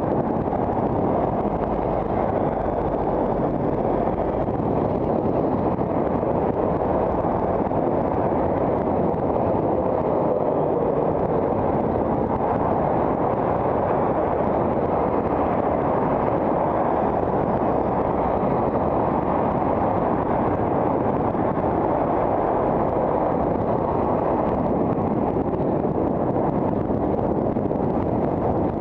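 Steady rush of wind over the microphone of a riding cyclist's camera, mixed with road and traffic noise from passing cars.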